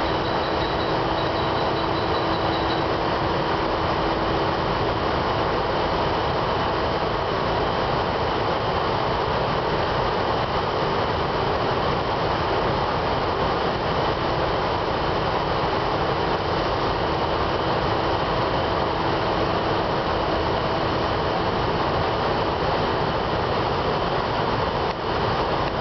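Light-oil start-up burner of a circulating fluidized bed boiler firing continuously, a steady rushing noise with a constant hum running through it.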